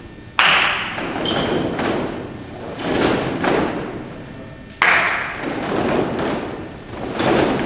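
A group of sabre fencers stamping and lunging in unison on a hall floor: heavy foot thumps that echo round the hall. The two loudest come about half a second in and near five seconds in, with smaller footfalls between.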